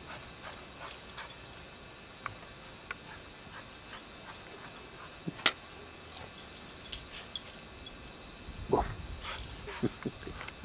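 Small dog running about in snow, with scattered light clicks and jingles throughout and a couple of short whines from the dog near the end.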